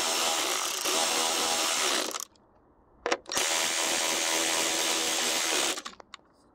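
Power drill with a Torx bit on a long extension, running in two spells of about two and a half seconds each to drive two T30 Torx screws home in the battery bracket. The second spell starts about a second after the first stops.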